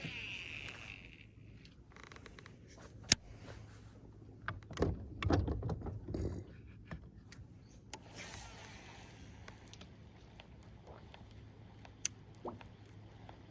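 Handling noises in a small fishing jon boat: a few sharp clicks, and a cluster of low thumps and bumps about five seconds in, over a faint steady low hum.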